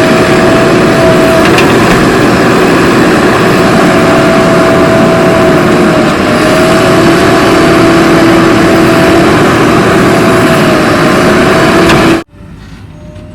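Heavy diesel engine of a backhoe loader or truck running hard, with a steady whine that wavers slightly in pitch. Near the end it cuts off suddenly.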